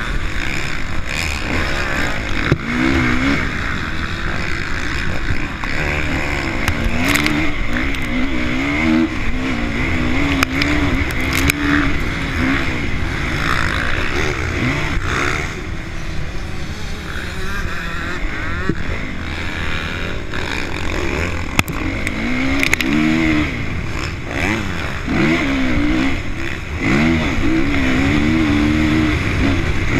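Honda CRF450 motocross bike's single-cylinder four-stroke engine under race throttle on sand, its pitch rising and falling over and over as the rider accelerates, shifts and backs off, with scattered sharp ticks throughout.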